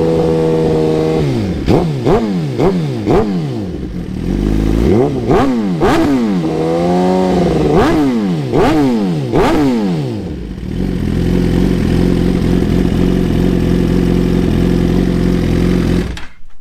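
Suzuki GSX-R 1000 inline-four through a Brock's Alien Head full exhaust system, held at raised revs, then blipped in a series of quick throttle revs that rise and fall, then settling to a steady idle. The sound cuts off near the end.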